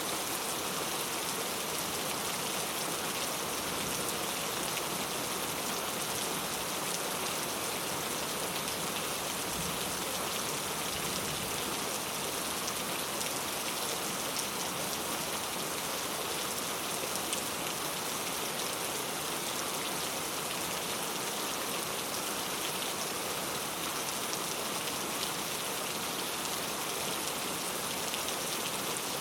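Steady rain falling, an even hiss of drops hitting a surface, with fine individual drop taps.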